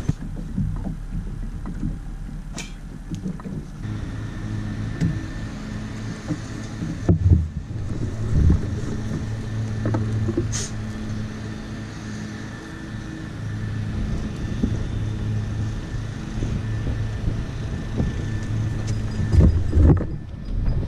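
Boat motor running steadily, with wind noise on the microphone and a few sharp knocks.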